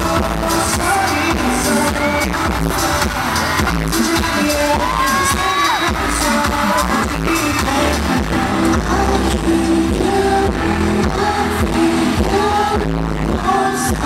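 K-pop song with singing over a steady beat, played loud over an arena sound system and recorded from the audience.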